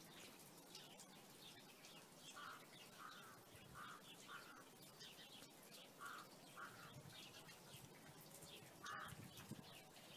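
Faint birds calling: short calls in a group of four, then two, then one near the end, over scattered high chirping.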